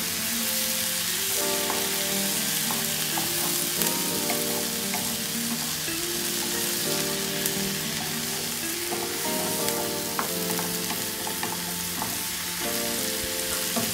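Diced tomato and onion sizzling in olive oil in a frying pan, stirred with a wooden spatula that scrapes the pan, with soft background music underneath.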